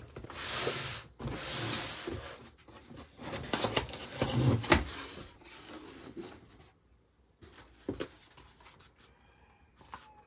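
Rustling and rubbing as things are handled, in bursts through the first few seconds, with several sharp clicks and knocks. It is quieter in the last few seconds.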